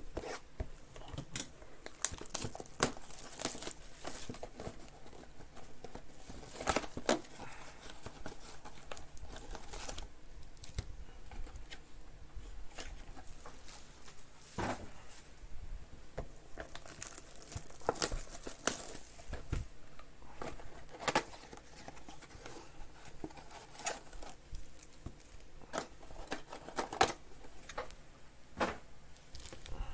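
Panini Select trading-card boxes being opened by hand, with their wrapped card packs handled: irregular crinkling, rustling and tearing with scattered sharp crackles.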